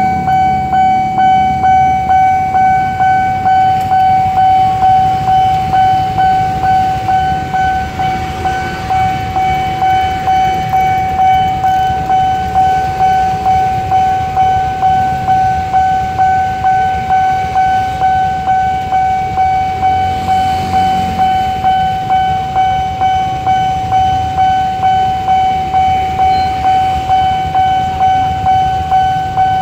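Railway level-crossing warning bell ringing: an electronic tone struck over and over, about one and a half times a second, signalling that a train is approaching, over a low rumble of traffic.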